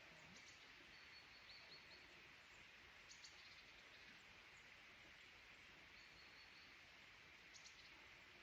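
Near silence: faint steady forest background hiss with a few distant bird chirps, including two short high whistled notes, one about a second in and one about six seconds in.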